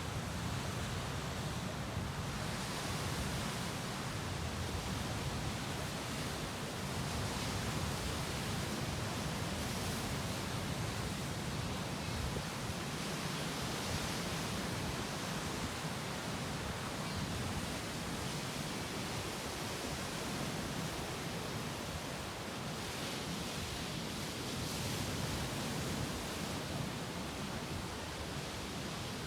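Sea waves breaking and washing against rocks on a beach: a steady, even rush of surf that swells a little every few seconds.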